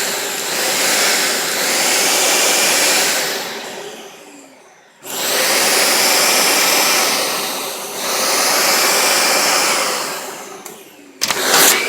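Dyson Ball Multi-Floor upright vacuum running, its motor winding down to nearly a stop about four seconds in and starting up again suddenly a second later, then winding down again and restarting near the end. The motor keeps cutting out and restarting because the power button is, in the owner's words, kind of broke.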